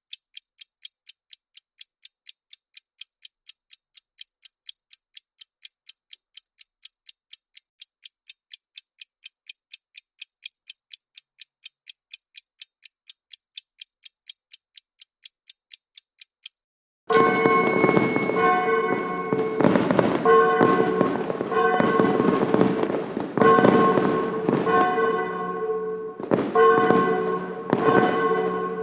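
Timer sound effect: a thin, high clock ticking about twice a second stops about 16 seconds in, marking the end of the countdown. A loud end alert with ringing bell-like tones cuts in at once, followed by fireworks sound effects: repeated crackling bursts over sustained chiming tones.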